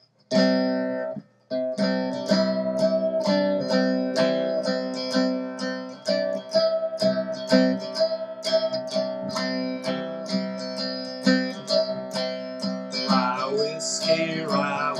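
Cigar box guitar playing an instrumental intro: a quick run of plucked notes over steady ringing drone strings, with a short break about a second in.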